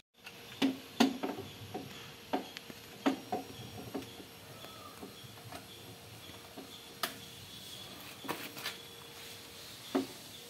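Scattered light clicks and taps from hands working at the engine of a stationary 1969 Royal Enfield Bullet 350 as it is readied for a cold start; the engine is not running.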